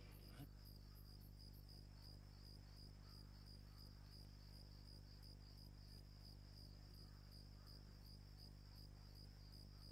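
Faint, steady cricket chirping, an even high pulsing trill, over a low steady hum.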